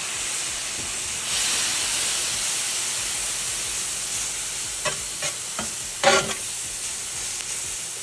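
Sliced bell peppers sizzling on a hot flat-top griddle just deglazed with a splash of water, the sizzle swelling about a second in. Near the middle come a few short clacks and scrapes of metal tongs turning the peppers on the griddle, the loudest about six seconds in.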